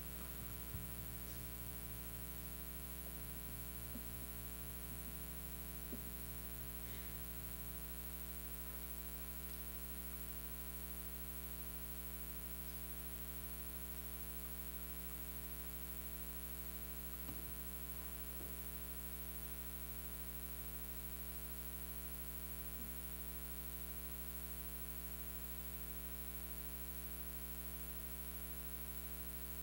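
Steady electrical mains hum and buzz with a little static, broken by a few faint knocks.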